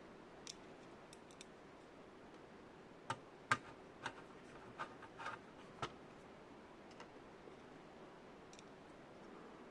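A few sharp clicks and light knocks, bunched about three to six seconds in, with fainter ticks on either side, over a faint steady hum.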